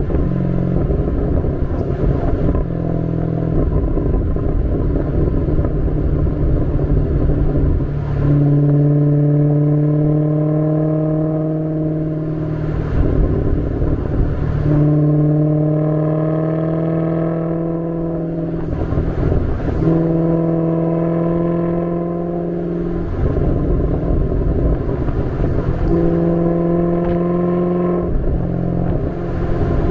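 Maserati GranCabrio S's 4.7-litre Ferrari-derived V8 exhaust on the move. The engine note climbs in pitch in four stretches of a few seconds each, with short breaks between them.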